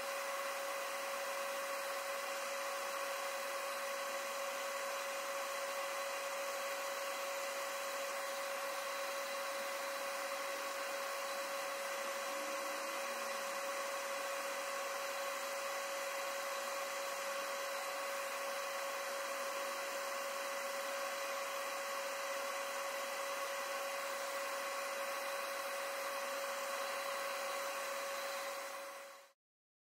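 Steady whirring machine noise with a constant hum, unchanging throughout, fading out about a second before the end.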